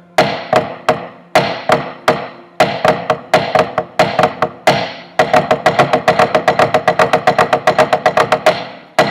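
Snare drum played with sticks, repeating the inverted Swiss Army triplet rudiment: a right-hand accent, a left-hand flam and a left-hand tap. The strokes come slowly at first, then about five seconds in they speed up into a fast, even stream that stops shortly before the end.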